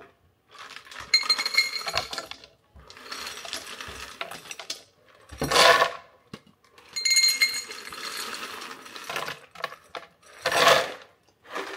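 Honey roasted peanuts scooped with a stainless steel measuring cup and poured into an empty plastic blender jar: long stretches of dry rattling as the cup is filled, with a short, louder clatter about halfway through and again near the end as a cupful tips into the jar.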